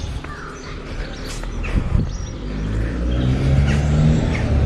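A car approaching along the road, its engine hum growing louder over the second half, with small birds chirping.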